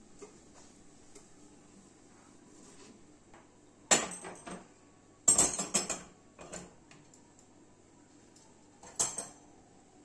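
Metal pan supports (grates) of a gas hob being lifted off and set down, clanking against the hob and each other: a single clank about four seconds in, a quick run of clanks a second later, and one more near the end.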